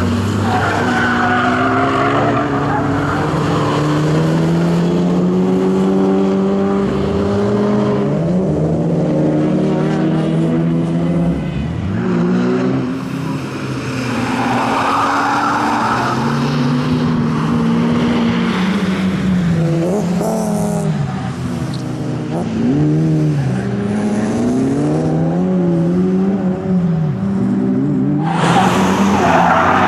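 Ford Focus RS Mk1's turbocharged four-cylinder engine driven hard, its pitch climbing and dropping again and again through gear changes and lifts, with tyres squealing in the corners: about a second in, around the middle and near the end.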